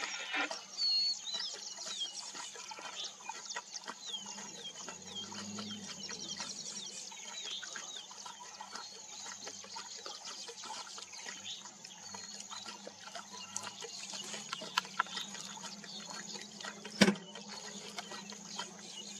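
An African lion lapping water at a muddy pool, faint irregular wet clicks, while birds call in repeated short falling chirps. A single sharp knock comes near the end.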